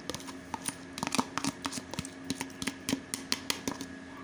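Yogurt being scraped and tapped out of a yellow plastic container into a steel bowl of raw chicken: a run of irregular sharp clicks and taps, several a second, over a faint steady hum.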